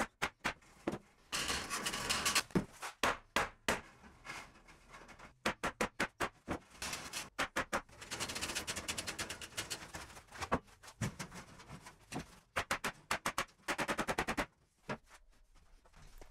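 Sharp clicks of a staple gun fastening galvanized wire mesh to a wooden frame, and tin snips snipping through the mesh in quick runs of clicks, with a couple of longer scraping stretches as the mesh is handled.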